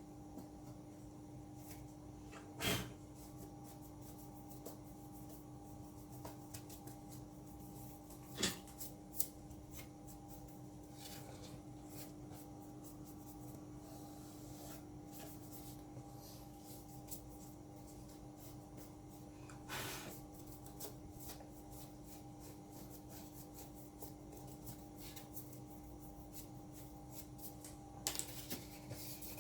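A few sharp little clicks and faint rubbing of a screwdriver and parts being handled while a MacBook Pro is put back together, over a steady low hum.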